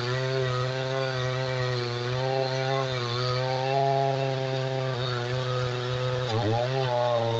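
Two-stroke chainsaw running at high revs as it cuts through wood, its engine note wavering under load, with a brief dip in revs about six seconds in.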